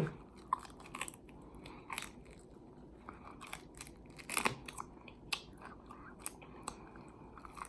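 A person chewing and biting into a beef short rib: a string of short, irregular mouth clicks, the loudest about four and a half seconds in.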